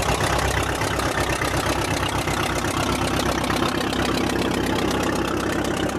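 Engine of a 1938 McCormick-Deering 10-20 tractor running steadily under load as it pulls a two-bottom plow, with a rapid, even beat.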